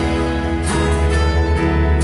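Live church praise band playing a slow worship song on guitars, keyboard and drum kit, with singers holding long notes.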